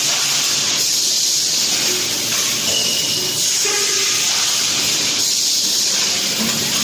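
Automatic plastic-cup thermoforming and stacking line running, with a loud steady hiss of compressed air that swells and eases every second or two, and a few short faint tones now and then.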